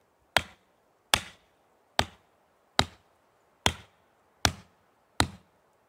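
A Hults Bruk Almike hatchet's head hammering the top of a wooden stake to drive it into the ground: seven sharp, evenly paced knocks, about one every 0.8 seconds.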